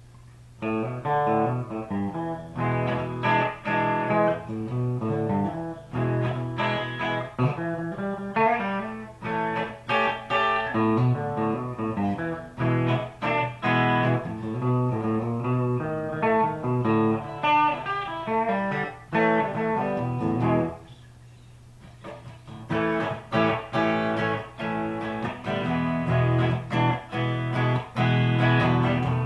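Custom T-style electric guitar with Lace Alumitone pickups played on the neck single-coil plus the coil-split (tapped) bridge humbucker, picking single notes and chords. The playing pauses for about a second and a half roughly three-quarters of the way through, then resumes.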